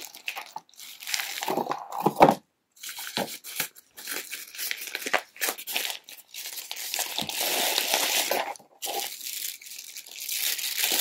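Plastic packaging and a fabric carry bag crinkling and rustling in irregular handfuls as a monopod is pulled out and unwrapped, with a thump about two seconds in.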